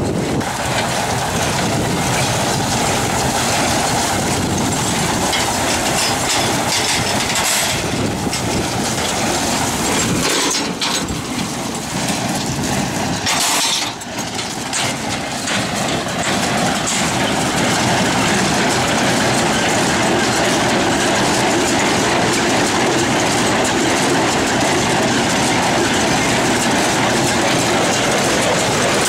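Heavy farm machinery running steadily with a dense, rattling clatter, briefly dipping and disturbed about halfway through.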